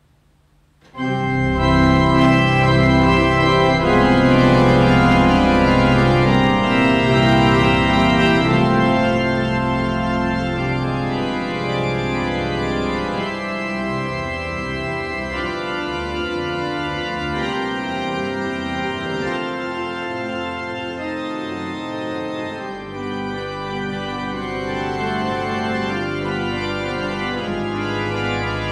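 Church pipe organ entering abruptly about a second in with many stops drawn: a dense, sustained, full-sounding chord texture with deep bass. It is loudest for the first several seconds and settles a little softer after about ten seconds.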